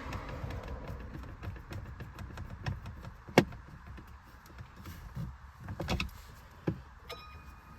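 Plastic trim pieces on a pickup's steering column being handled and pressed into place: a run of sharp clicks and knocks, the loudest about three and a half seconds in and a cluster near six seconds.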